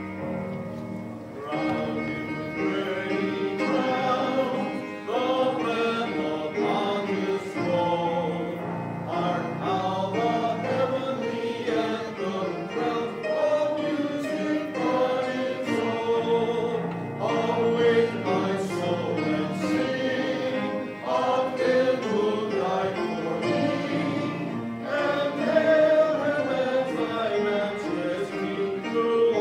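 Church congregation singing a hymn together, with piano accompaniment.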